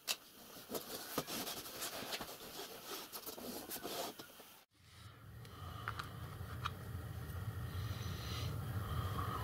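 A sticker being pressed and smoothed onto a board by hand: faint crackling and scratching of the paper under the fingers. About halfway through the sound changes to a steady low hum, with a couple of small sharp clicks as a small metal hinge is handled.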